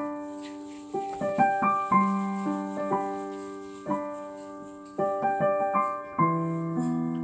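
Background piano music: an unhurried tune of struck notes, each ringing and fading, with short quick runs of notes in between.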